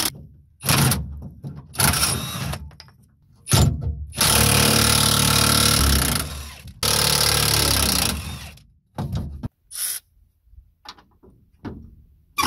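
Milwaukee M18 cordless impact wrench hammering out the bumper mounting bolts in bursts. There are short bursts, then two longer runs of about two seconds each, then only brief trigger blips near the end.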